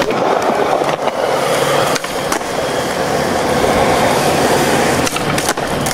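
Skateboard wheels rolling on smooth concrete with a steady rumble, broken by a few sharp clacks of the board hitting the ground.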